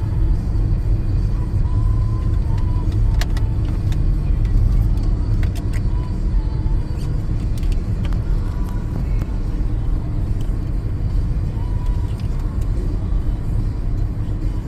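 Car driving on a rain-wet road: a steady low rumble of engine and tyres, with a few scattered sharp ticks.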